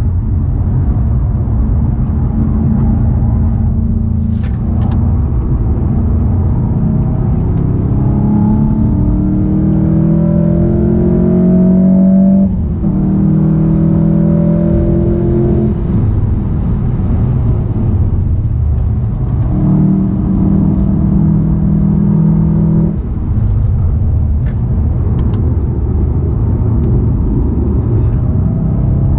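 Volkswagen Golf VII GTI Performance's turbocharged 2.0-litre four-cylinder engine heard from inside the cabin under hard acceleration, its note climbing steadily through the revs and broken twice by short dips at gear changes. A heavy rumble of road and wind noise runs underneath.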